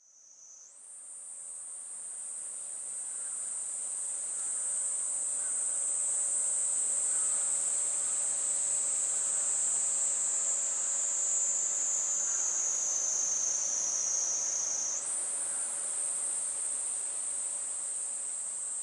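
Cicadas buzzing in a steady high-pitched drone that fades in at the start. It sinks slowly in pitch, then jumps back up about three-quarters of the way through.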